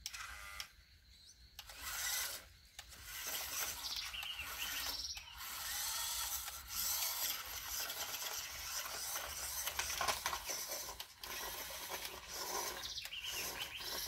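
Gizmovine toy RC monster truck driving over wet mud and stones: its small electric motor and gears whir and rasp while the tyres churn through the mud, louder and softer as it drives.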